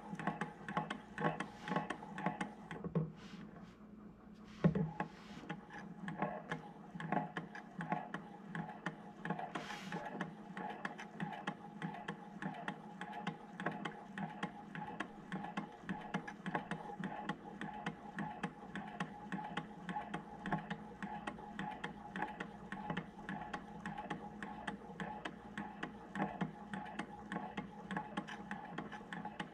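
Low-temperature Stirling engine running, its spinning flywheel and moving parts making a rapid, steady clicking. There is a short lull with a thump about four seconds in.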